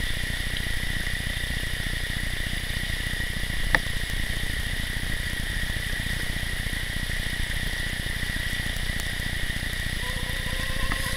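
Steady rushing of shallow river rapids, with a thin steady high tone over it and a single click about four seconds in.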